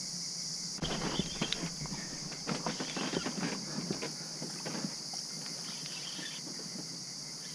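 Crickets chirring steadily. From about a second in, close irregular clicks, knocks and rustling come from an angler handling a rod with a hooked fish on the line.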